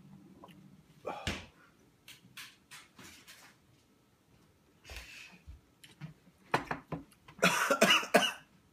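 A man coughing on spicy hot-wings-flavoured chips: a single harsh cough about a second in, then a loud fit of several coughs close together near the end.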